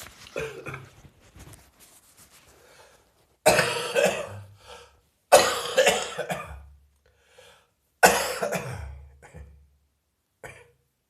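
A person with a heavy chest cold coughing: three loud coughing fits, the first about three and a half seconds in, each fading out over about a second. Softer throat sounds come before them.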